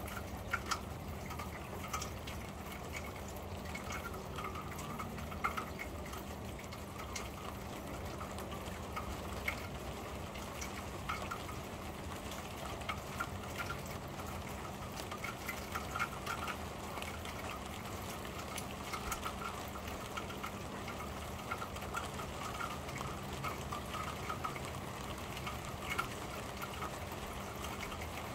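Rain falling on a corrugated metal roof, heard from beneath: a steady patter with scattered louder drops ticking on the sheet metal.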